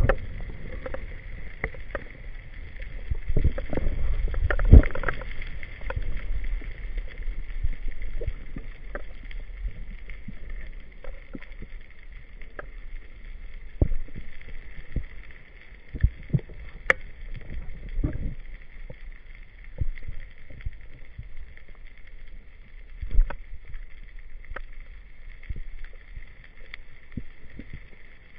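Underwater sound recorded through a camera's waterproof housing: a low rumble of moving water with irregular knocks and clicks, the sharpest about five seconds in, over a faint steady hiss.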